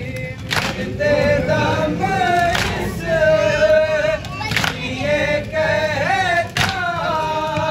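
Several men's voices reciting a nauha, a Shia lament, together. A sharp thump about every two seconds marks the beat.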